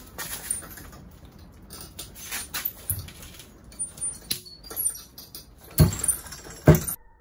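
Homemade gravity-drop beam power hammer: its roughly 53 lb ram is hoisted by rope with light metallic clicks and rattles, then drops onto the anvil twice near the end with two heavy impacts less than a second apart.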